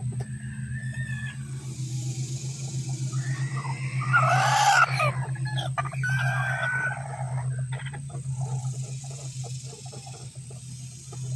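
Rooster calling: about four seconds in, a loud pitched call lasting about a second and a half, followed by shorter calls; a rooster's alarm call warning the flock of a possible aerial predator such as a hawk. A steady low hum runs underneath.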